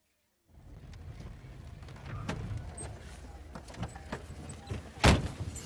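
A car engine running low and steady, with clicks and knocks as the driver's door is opened, then one loud thud of a car door shutting about five seconds in.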